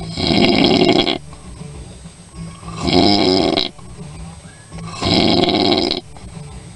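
A person snoring loudly in an even rhythm: three long snores, each about a second, roughly two seconds apart.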